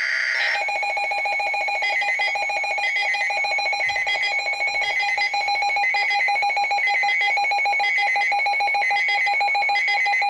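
Emergency alert attention signal: a loud, steady electronic alarm tone with a short higher beeping repeating over it, sounded ahead of a severe thunderstorm warning.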